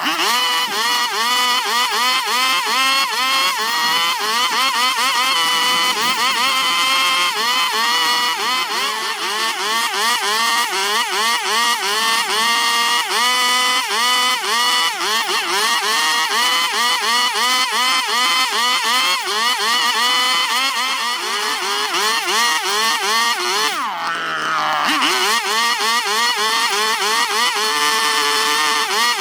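Gasoline chainsaw carving into wood, its engine pitch rising and falling over and over as the throttle is worked through the cut. Near the end it drops briefly toward idle, then revs back up.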